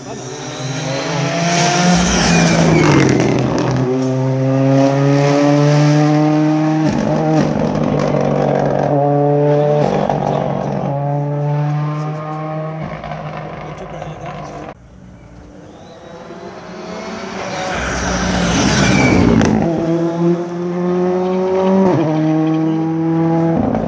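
Two rally cars pass at full throttle, one about two seconds in and one about nineteen seconds in. Each then accelerates away through several quick upshifts, the engine note climbing and dropping back with every gear.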